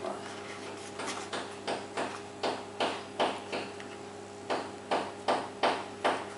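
Baking paper crinkling in short rustles, two or three a second with a brief pause midway, as hands tuck and pinch the edges of a puff pastry lid down into a lined round tin. A faint steady hum runs underneath.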